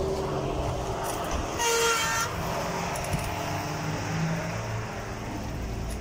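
A single short horn toot, one steady note lasting under a second, about one and a half seconds in, over a steady low rumble.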